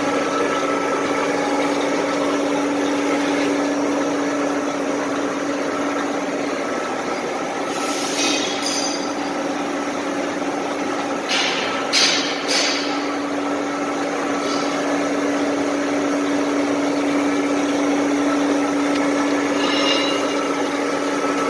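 Vertical lathe running with its table turning a large steel shaft while a bearing seat is machined: a steady hum under the noise of the cut, with a few short sharp clatters about eight seconds in and again around twelve seconds.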